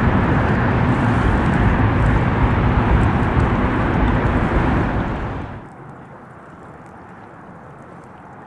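Traffic on the concrete highway bridge overhead: a loud, steady rumble of tyres and engines heard from beneath the span. It cuts off abruptly about five and a half seconds in, leaving a much quieter steady hiss of wind and water.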